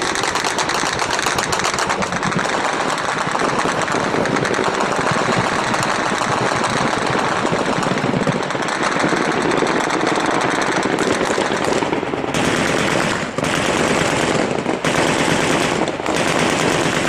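Sustained automatic gunfire in a firefight: a dense, continuous rattle of rapid shots, with short breaks a few times near the end.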